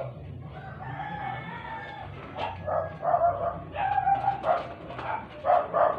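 A rooster crows once, a long call over about the first two seconds. Then come a string of short, sharp whimpering yelps from a dog, several a second at times.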